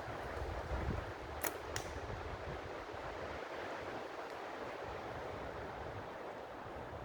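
Steady forest wind noise with some wind rumble on the microphone, and two sharp snaps about a quarter second apart a second and a half in: a slingshot shot, the rubber bands' release followed by the ball striking the tree.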